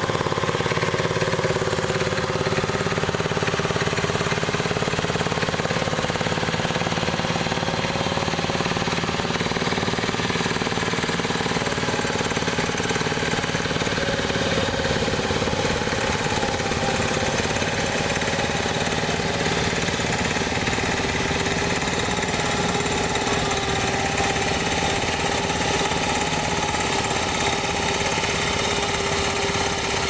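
Small engine of an Iron Horse two-wheeled walk-behind motor plough running steadily as it pulls the plough through the soil.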